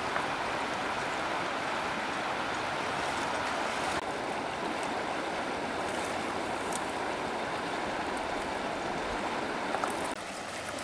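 Shallow river water flowing over a stony riffle: a steady rushing of water, with a few faint ticks of splashing in the latter half.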